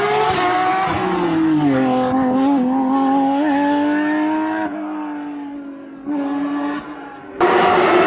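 Porsche rally car engines at high revs: the pitch drops about one and a half seconds in, then holds steady while the car fades away. Near the end the sound cuts abruptly to another, louder car at steady high revs.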